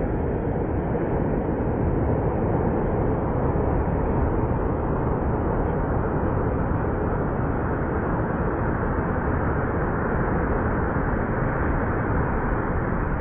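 Surf breaking on a sandy beach: a steady rushing noise of waves with a heavy low rumble and no pauses.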